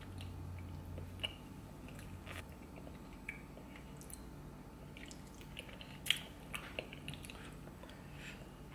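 A person chewing and biting deshelled seafood in butter sauce, close to the microphone: scattered wet mouth clicks and smacks, with one sharper click about six seconds in.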